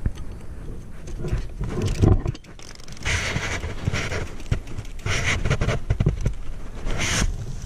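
Mountain bike moving over a dirt woodland trail: tyre noise on dirt with the chain and frame rattling in many short clicks, and louder bursts of hiss about three, five and seven seconds in.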